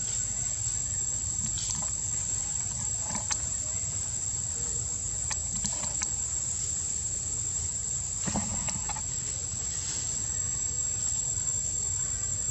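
Steady high-pitched drone of forest insects, with a few short rustling clicks scattered through (the clearest about eight seconds in) over a low rumble.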